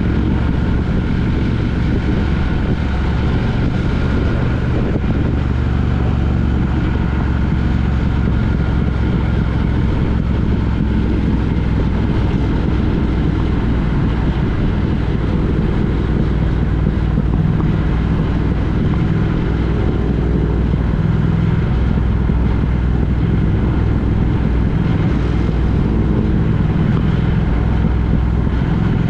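Road vehicle on the move: a steady, loud rumble of engine and road noise, heaviest in the low end, holding even throughout.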